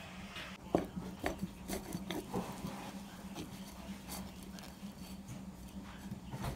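Kitchen knife cutting through a mini pizza on a ceramic plate, with a few light clicks and knocks of the blade against the plate in the first two and a half seconds. A steady low hum runs underneath.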